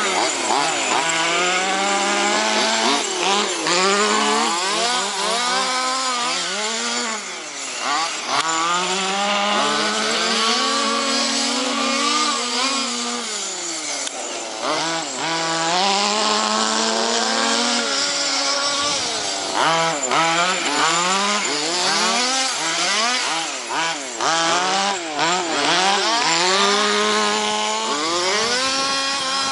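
Two-stroke petrol engines of several large-scale RC cars revving hard, their overlapping pitches rising and falling over and over as the throttles open and close.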